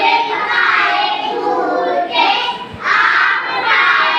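A group of children singing together in unison, in short phrases.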